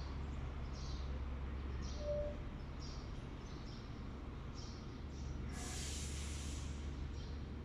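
Milking parlor machinery running: a steady low hum from the vacuum system, with soft rhythmic hisses about once a second from the milking units' pulsators. About five and a half seconds in, a louder hiss of air lasts a little over a second.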